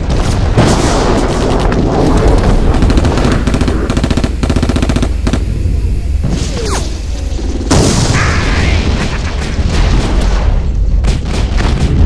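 Battle sound effects: rapid gunfire and machine-gun bursts mixed with heavy booms of explosions over a constant low rumble. A falling whistling tone cuts in around the middle.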